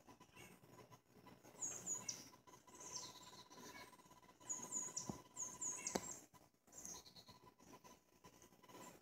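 Small birds chirping in short bursts of quick, high, falling notes, with a faint steady tone underneath and two sharp clicks around the middle.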